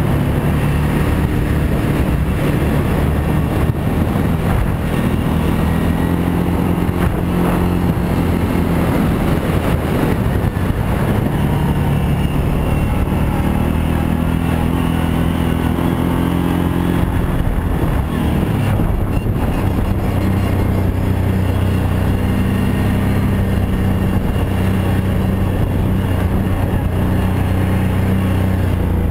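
Kawasaki Brute Force 750i ATV's V-twin engine running while riding, its pitch rising and falling several times with the throttle, then holding steady for about the last ten seconds.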